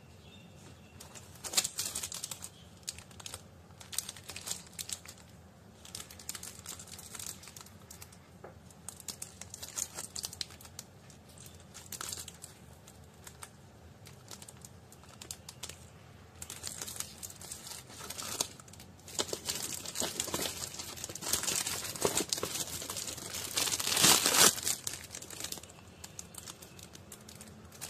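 Clear plastic bags crinkling and rustling in the hands as water filter cartridges are handled, with scattered clicks and crackles that grow busier and louder about twenty seconds in.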